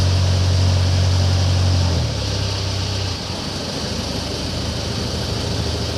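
Boat engine running steadily, then dropping in pitch and level about two seconds in and again just after three seconds, as if throttled down, and carrying on at a lower, steady running note.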